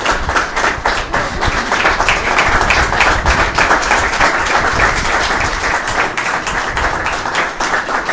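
A small audience applauding: many hands clapping densely and continuously.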